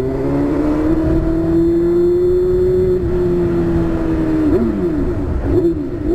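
Honda Hornet motorcycle engine with a loud aftermarket exhaust, held at high revs while riding. Its pitch eases slightly, drops sharply about four and a half seconds in, then swings quickly up and down near the end.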